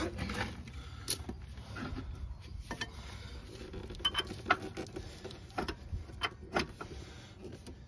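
Scattered metallic clicks and knocks as the lower end of a new rear shock absorber is worked by hand against its axle bracket, lining up the mounting eye to slide the bolt through.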